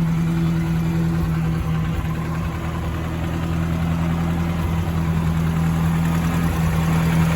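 Toyota Hilux YN106 pickup's engine idling steadily with an even, unchanging hum.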